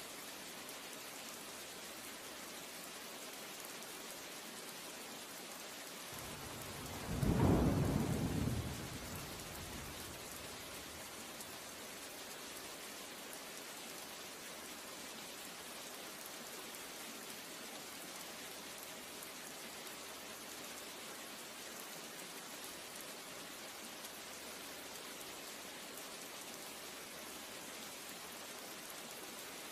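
Steady rain hiss with one rumble of thunder about seven seconds in that swells and dies away over about three seconds.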